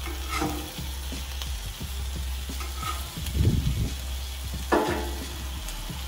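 Ham slices sizzling steadily on a Blackstone flat-top griddle while a metal spatula scrapes under them and flips them, with a few short scrapes and a dull thump about halfway through.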